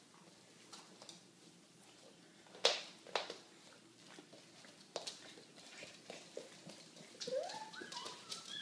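A few faint taps and clicks from small feet and dog claws on a hardwood floor, then near the end a dog whimpering in high notes that rise and fall, begging for food.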